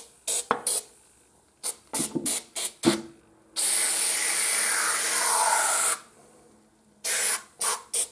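Aerosol can of oven-cleaner foam spraying in a run of short hissing bursts, with one long continuous spray of about two and a half seconds in the middle.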